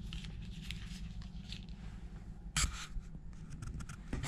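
Light rustles and taps of folded-paper origami being handled and set down on a wooden table, the loudest a sharp rustle about two and a half seconds in. A low steady hum runs underneath.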